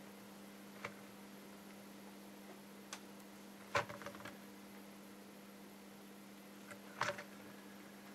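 A few faint clicks and taps from a soldering iron and a 3D-printed LED-strip core being handled on a work mat, the loudest a small cluster about halfway through and another about seven seconds in, over a steady low electrical hum.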